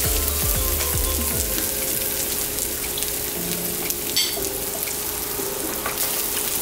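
Corned beef, onion and green chili sizzling in a frying pan after a stir-fry, with a metal spoon clinking down onto a ceramic plate about four seconds in.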